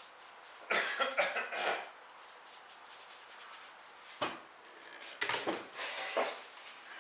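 Short, noisy bursts of wood dust being brushed off a freshly ground wooden handguard spacer, in two clusters, with a sharp click of the part being handled between them.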